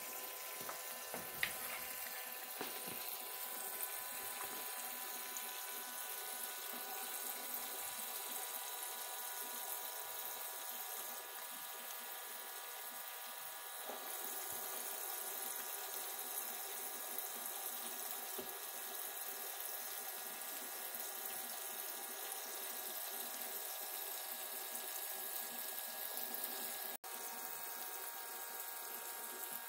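Toy play sink's small water pump running with a steady hum while water streams from its toy faucet into the soapy basin.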